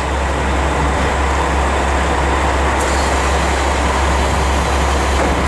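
KiHa 47 diesel railcar idling with its doors open: a steady, unchanging low engine rumble with an even hum above it.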